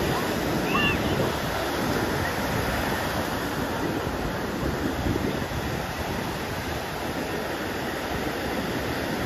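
Ocean surf breaking and washing up the beach, a steady rush of waves, with wind buffeting the microphone.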